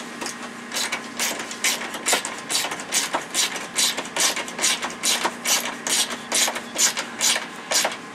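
Ratchet wrench with a 1/2-inch socket clicking steadily as a bolt is run down and snugged, about three to four clicks a second.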